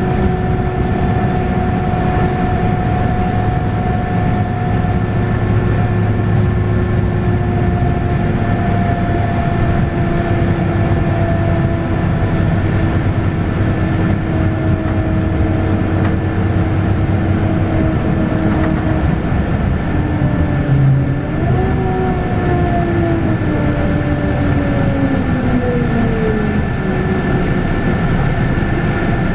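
Interior running sound of a Scania K280UB bus with a 9.3-litre five-cylinder DC9 diesel and a ZF Ecomat six-speed automatic gearbox, under a steady low hum. A whine sinks slowly in pitch, jumps up about 21 seconds in as the gearbox changes gear, then falls steadily for several seconds.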